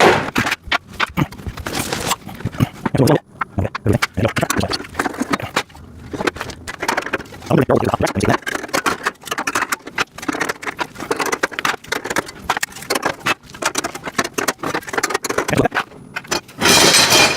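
Irregular clicking, knocking and clattering of metal rack parts and plastic parts bins being handled and fitted together during assembly, with a louder scrape near the end.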